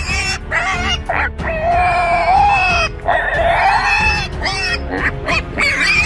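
Piglet squealing while held up by hand: a few short squeals, then two long drawn-out squeals of about a second and a half each, then short squeals again.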